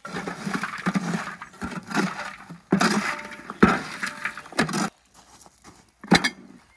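Metal spade scraping and shovelling lump charcoal in a steel fire bowl, the coals crunching and clinking as they are pushed aside to make a hollow for the pot. The scraping stops about five seconds in, and a single sharp clank follows about a second later.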